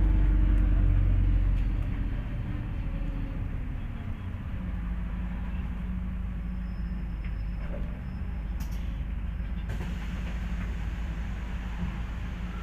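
A MAZ 203 city bus under way, heard from inside: a low engine and road rumble, loudest for the first couple of seconds, then easing to a steadier drone.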